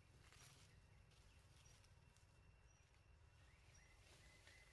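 Near silence: faint forest ambience, with a faint run of short rising chirps, about three or four a second, near the end.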